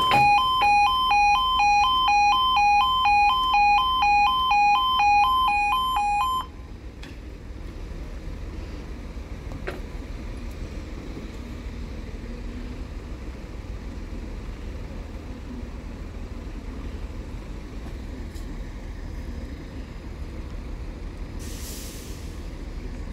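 Level crossing warning alarm, two tones alternating high and low about twice a second, cutting off suddenly about six seconds in as the barriers stand raised; after it, only a low steady background rumble with a brief hiss near the end.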